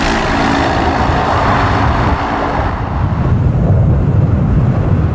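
Road vehicle passing by with engine and tyre noise. The higher rushing noise fades after about three seconds, leaving a low rumble.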